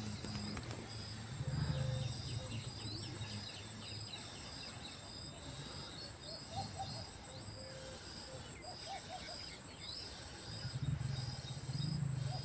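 Insects chirping outdoors: short high chirps repeating at an even pace, with a few brief bird calls mixed in.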